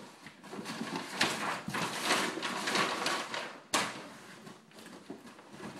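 Cardboard and plastic packaging being handled and pulled open, with rustling and scraping and one sharp knock nearly four seconds in.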